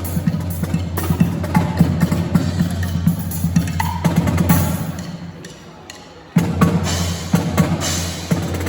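Marching band drum cadence: snare and bass drums beating a quick rhythm. The drumming fades away about five seconds in and comes back suddenly a little later.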